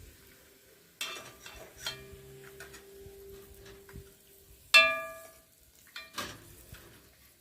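Metal clanks on a Dutch pot, a few knocks with one loud ringing clang about two-thirds of the way through.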